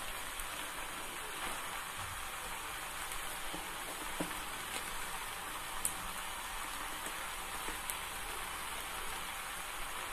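Chopped vegetables sizzling steadily in oil in a clay kadai as they cook, with a few faint scattered pops and clicks.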